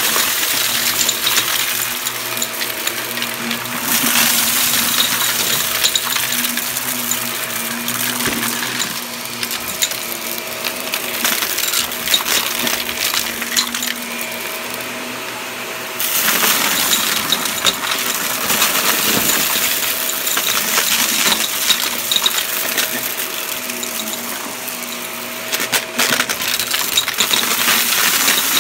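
Shark upright vacuum cleaner running while sucking up a pile of hard, crunchy debris from carpet: a steady motor hum under a dense stream of crackling and rattling clicks as the bits are pulled up through the machine. The rattling thins out briefly about halfway through, then comes back strongly as the head goes back into the pile.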